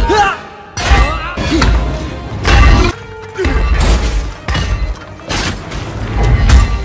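Fight-scene sound effects from an action film: a rapid series of heavy hits, crashes and shattering debris, roughly one a second, over a music score.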